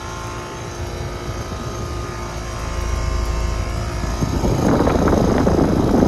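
Trane XR central air-conditioner condensing units running, the LG scroll compressor and condenser fan giving a steady hum with several held tones. From about four seconds in, a loud rough rumble builds as the fan's discharge air buffets the microphone held over the top grille.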